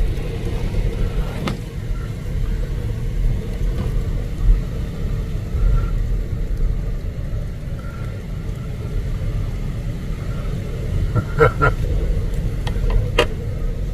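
Strong gusting wind buffeting the microphone: a steady low rumble that swells and eases, with a couple of faint clicks near the end.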